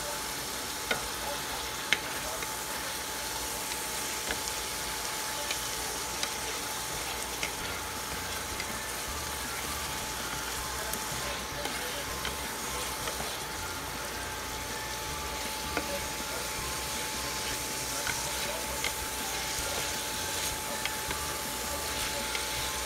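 Meat-alternative beef chunks sizzling in oil and soy sauce in a square nonstick pan, stirred with a silicone spatula that now and then clicks against the pan. A thin steady tone runs underneath.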